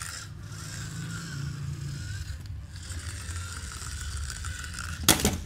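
Plastic toy monster truck's gear motor whirring and ratcheting as it is pushed along and then rolls on its own. About five seconds in there is one loud, sharp clatter.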